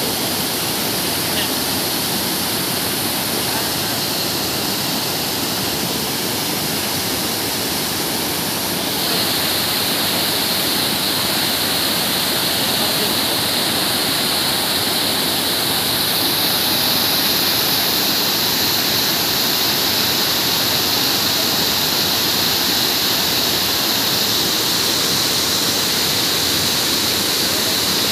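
Water pouring over a river dam's weir and churning in the pool below: a steady rushing that grows a little louder and brighter about nine seconds in.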